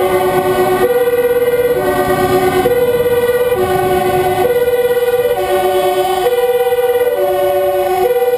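Fire engine's two-tone siren, alternating steadily between a lower and a higher note, each held just under a second. Engine and road noise run beneath it.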